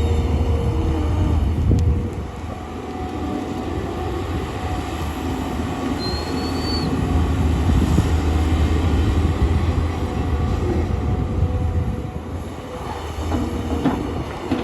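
Tata Hitachi excavator's diesel engine running steadily under load, with a few short, high metallic squeals over it.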